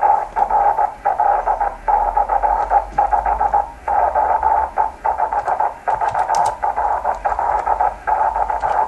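Rain-scattered 10 GHz SSB signal from a distant station heard through a Yaesu transceiver's speaker: a strong, rough, raspy hiss in the midrange that chops on and off irregularly, without clear pitch, as rain scatter smears the signal.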